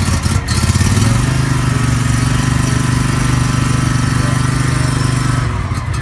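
Scag stand-on mower's engine running steadily just after a cold start with the choke on. Its note rises a little about a second in, then holds even.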